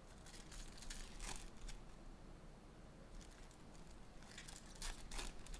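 Trading-card pack wrappers crinkling and tearing as packs are opened, in two short spells of faint crackling.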